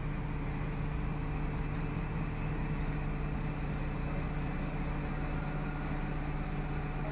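XCMG 47-metre truck-mounted concrete pump running steadily, its truck engine driving the boom's hydraulics during the boom's first lift test: an even drone with a steady low hum.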